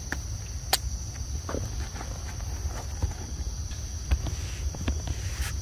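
Steady high drone of crickets, with scattered footstep clicks and rustles on a leaf-strewn dirt path; one sharp click about a second in is the loudest sound.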